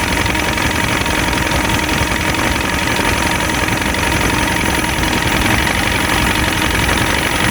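Boat motor running steadily at a constant low speed, with an even drone and a faint steady whine.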